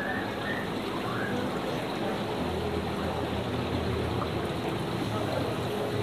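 Steady bubbling and splashing of aquarium aeration, air rising through the water of crowded guppy tanks. A low steady hum comes in about halfway through.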